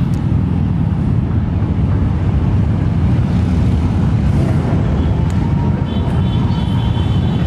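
Continuous low rumble of many motorcycle engines running, steady throughout.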